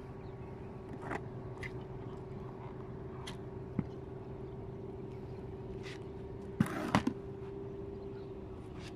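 Plastic bucket handled and set down on concrete: a few light knocks and scrapes, with a louder cluster of knocks about seven seconds in, over a steady low hum.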